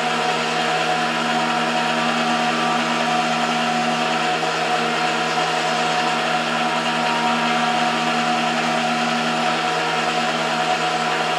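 MDF rose engine lathe running a motor-driven reciprocating cut, a steady motor hum and whine with no change in pitch.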